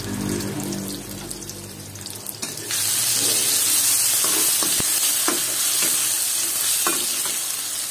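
Sausage slices and spice paste sizzling in hot oil in a wok, with a metal spatula scraping and tapping against the pan as they are stirred. The sizzle turns much louder about three seconds in.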